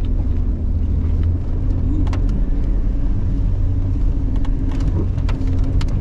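Jeep Cherokee XJ's engine running steadily at low trail speed, a constant low drone, with a few short knocks and rattles from the rough dirt track.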